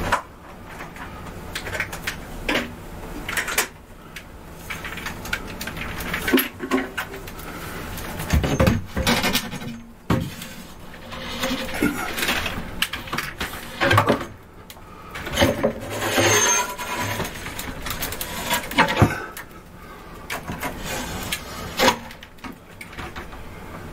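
Irregular clinks, rattles and knocks as a strapped-together grid of small computer tiles is handled and hooked onto a metal rod.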